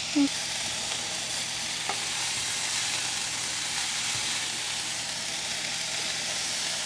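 Ground turkey with onions, garlic and sweet peppers sizzling steadily in a frying pan.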